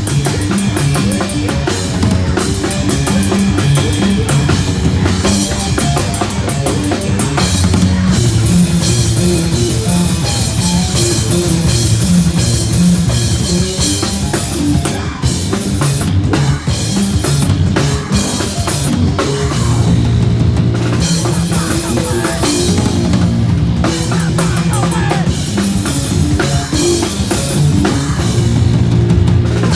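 Loud, dense rock music driven by a full drum kit, with heavy bass drum and snare hits over a thick low end.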